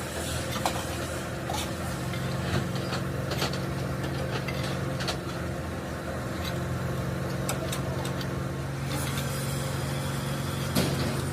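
A small engine running steadily at idle, with scattered light metallic clicks and taps over it.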